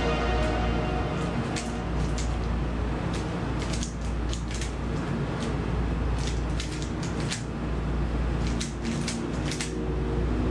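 Dayan Guhong V3 M magnetic 3x3 speedcube being turned fast during a solve: rapid, irregular plastic clicks and clacks as its layers snap round, over a steady low hum.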